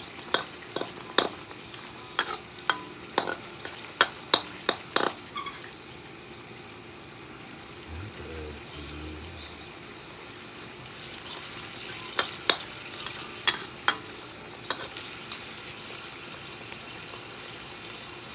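Sharp clinks of eating utensils against a dish, a quick run of about a dozen in the first five seconds and another handful about twelve seconds in, over a steady faint hiss.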